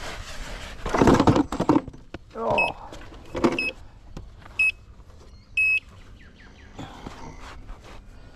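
Gotway MSX electric unicycle handled off the ground on dirt: a loud scuffing rush, then two short whines from its hub motor, then two short electronic beeps from the wheel, the second slightly longer.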